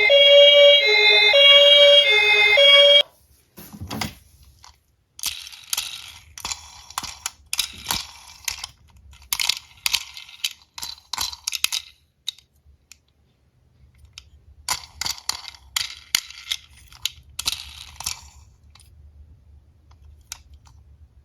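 Toy ambulance's electronic two-tone siren alternating high and low notes, cutting off abruptly about three seconds in. After it come scattered clusters of small clicks and rattles from diecast toy cars being handled and run down a small slope, which stop about eighteen seconds in.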